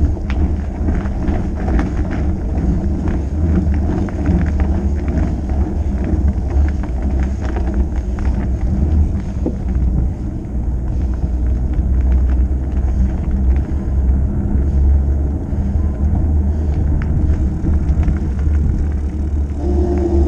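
Fat bike's wide tyres rolling on asphalt, a steady low rumble, with heavy wind on the microphone and small ticks and rattles over rough patches in the first half.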